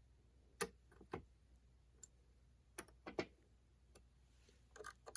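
Faint, irregular clicks and taps of small screw hardware and a hex driver being handled while a roll cage panel screw is fastened, about half a dozen clicks spread through a few seconds.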